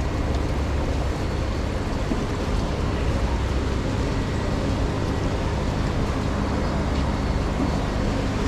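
Steady noise of heavy rain falling, with a low rumble underneath.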